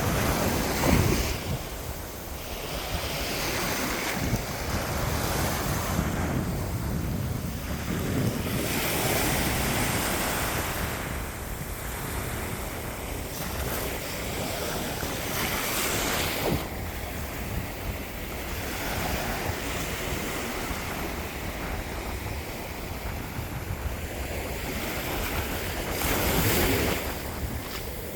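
Ocean waves breaking and washing up a beach, several waves swelling and fading, with wind rumbling on the microphone.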